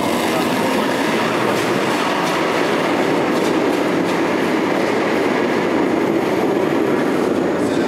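Granite curling stone running down the pebbled ice after release: a loud, steady rumble that starts suddenly and holds even.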